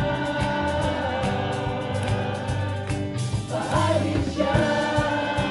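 A mixed group of voices singing together in chorus over a steady beat.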